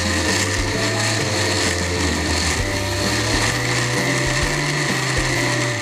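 Electric countertop blender running steadily, pureeing sweet corn kernels with a little water into a smooth batter.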